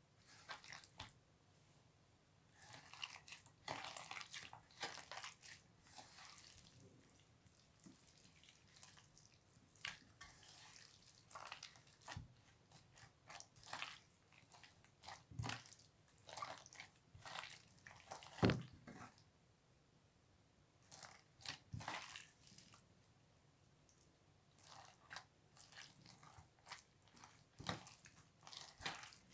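Slime being squished and worked by hand: quiet, irregular clusters of wet clicks, crackles and pops with short pauses between them.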